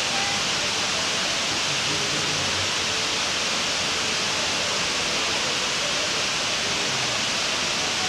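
The Dubai Mall's indoor waterfall: a tall curtain of water falling several storeys into a pool below, making a steady, even rushing hiss.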